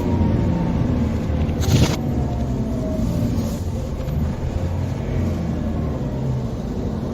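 Car driving, a steady low engine and road rumble, with a short knock about two seconds in.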